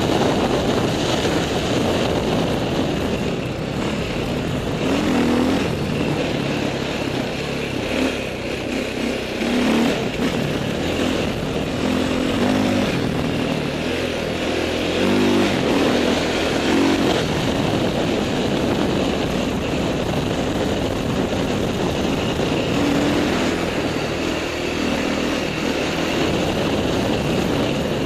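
Dirt bike engine running under way, its pitch repeatedly rising and falling with the throttle, over a constant rush of wind noise.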